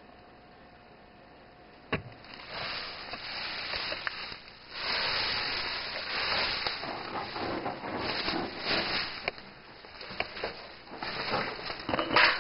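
Quiet at first, then a sharp click about two seconds in, followed by irregular scraping, shuffling and rustling of someone crawling through a narrow rock tunnel while carrying the camera: clothes, knees and hands on dirt and rock.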